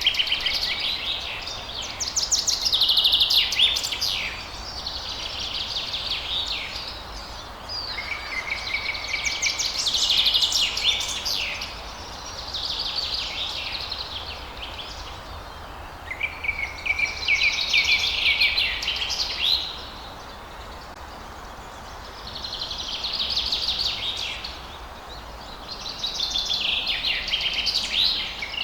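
Songbirds singing at dawn, a phrase of quick high notes and trills every few seconds, some phrases ending on a held whistle, with a short lull past the middle.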